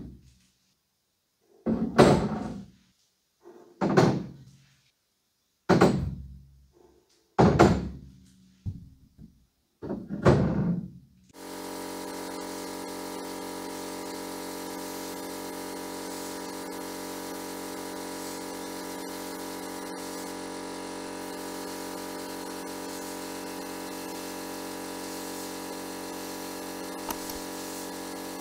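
A series of heavy thunks about every two seconds as metal stove parts are set down on the steel grate of a sandblasting cabinet. About eleven seconds in, the abrasive blast gun starts and runs steadily, blasting rust off a part inside the cabinet.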